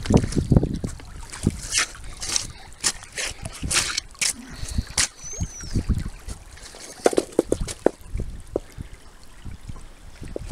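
Shallow creek water trickling and splashing, with irregular crackles and knocks throughout and a brief high chirp about five seconds in.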